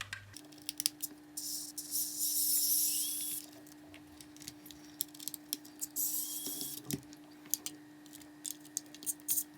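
A screwdriver working the screws out of a plastic Xbox One controller shell: rapid small clicks and ticks, with two longer hissing scrapes, over a steady low hum.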